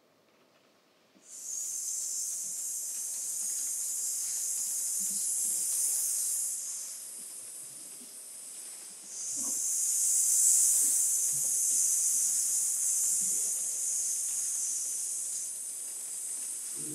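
A steady high hiss starts about a second in, weakens for a couple of seconds in the middle, then returns at full strength, with faint soft knocks underneath.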